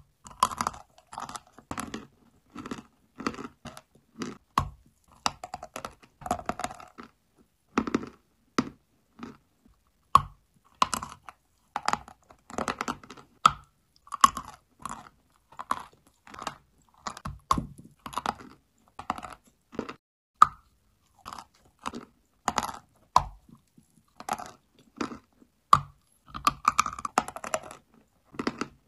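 Dry chalk being bitten and chewed: a long string of short, crisp crunches, one after another with brief pauses between.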